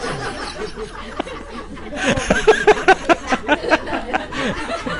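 People laughing, breaking about two seconds in into a quick rhythmic run of laughs.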